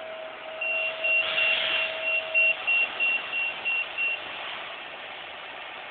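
A high electronic beeper sounding repeatedly, about three short beeps a second for roughly three and a half seconds.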